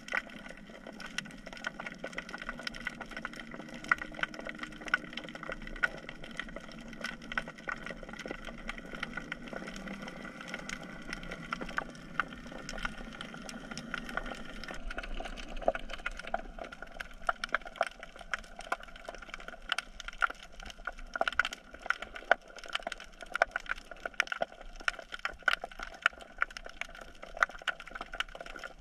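Underwater crackling: a dense, irregular patter of sharp clicks and snaps, the chorus of snapping shrimp on a rocky reef, over a low murmur that fades about halfway through.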